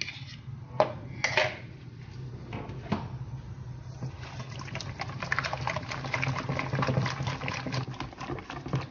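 Wire whisk beating liquid crêpe batter and eggs in a stainless steel bowl: a few separate knocks in the first three seconds, then fast, steady whisking strokes from about four seconds in.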